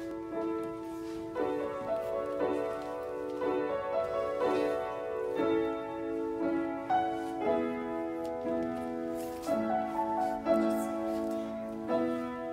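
Upright piano played live: a gentle passage of chords and melody notes, each held about a second before the next.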